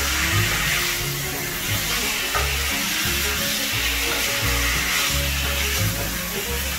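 Marinated chicken pieces sizzling as they fry in a pan, stirred and turned with a spatula, over background music.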